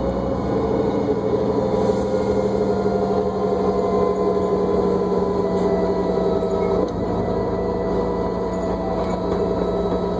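New Flyer D40LFR diesel bus heard from inside, its drivetrain whining with several steady tones over a low engine rumble as it drives, with a brief dip and change in the whine about seven seconds in.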